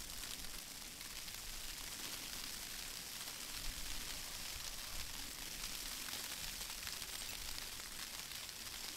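Steady faint hiss, strongest in the high range, with no distinct events.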